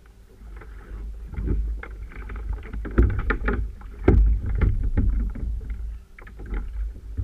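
Water slapping and splashing against a paddle ski's hull on the open sea, with a heavy, uneven rumble of wind buffeting the microphone. Two sharp knocks about three and four seconds in.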